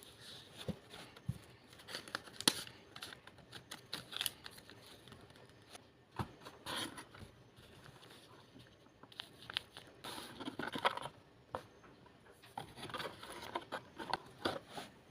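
Hands opening blind-box packaging: crinkling and tearing of wrapping, with scattered small clicks and taps and two longer stretches of rustling about two-thirds of the way in and near the end.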